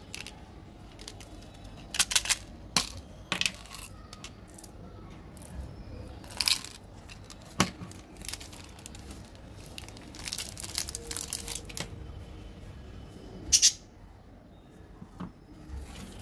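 Plastic candy-bar wrappers being torn open and crinkled by hand: scattered sharp rustles and rips, with a denser stretch of crinkling about two-thirds of the way through.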